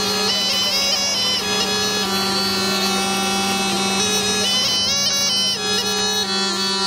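Snake charmer's pungi (been), a gourd reed pipe, playing without a break: a steady low drone under a winding, ornamented melody with sliding notes.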